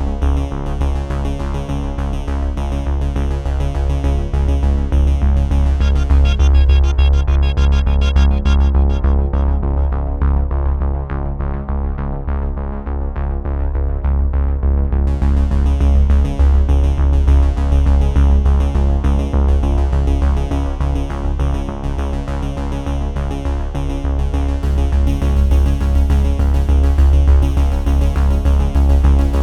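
Electronic background music with a steady bass beat. The high end fades out about a third of the way in and comes back a few seconds later.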